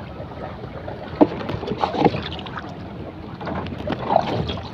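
Wind buffeting the microphone over a steady low rumble, with a few light knocks and clicks from hands handling bait on the bamboo raft.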